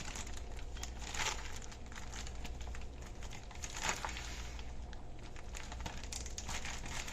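Plastic Ziploc bag crinkling and crackling in irregular bursts as it is handled and the air is pressed out while it is sealed.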